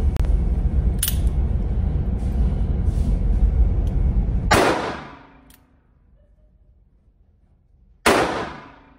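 Two shots from a .44 Magnum single-action revolver, about three and a half seconds apart, each ringing out in a short echoing decay in an indoor range. For the first half, until the first shot, a loud steady noise runs underneath.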